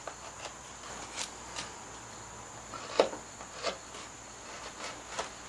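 Carving gouge pushed by hand through Alaskan yellow cedar, clearing background stock: a scatter of short, crisp cutting clicks and snaps as chips break free, about one a second, the sharpest about three seconds in.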